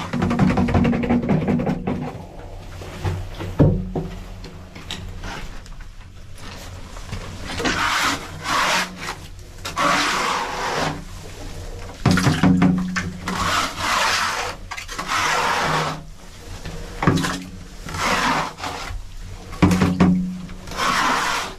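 Repeated rasping, rubbing strokes, each lasting about a second, coming in a run through the second half.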